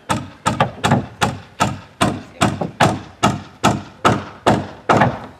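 Steady hammering on the planked wooden hull of a boat under construction: sharp, evenly spaced blows, about two and a half a second, each ringing briefly.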